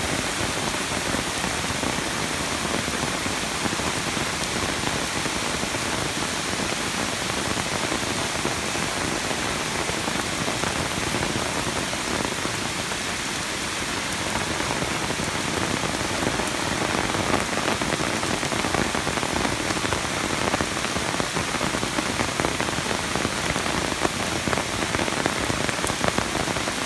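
Steady, even hiss of water and rain from a flooding creek, with scattered small ticks like drops hitting the surface that grow more frequent in the second half.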